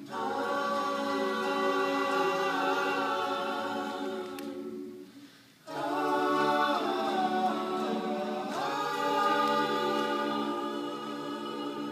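Vocal group singing a cappella in close harmony. A long held chord fades out about five seconds in, then after a brief pause a second chord swells in and is held, with some voices moving within it. These are the closing chords of the song.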